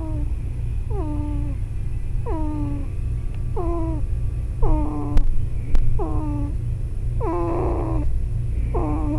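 Two-week-old baby snoring in his sleep: a short, squeaky, falling-pitch snore on each breath, about one a second, over a steady low hum. Two sharp clicks come a little past halfway.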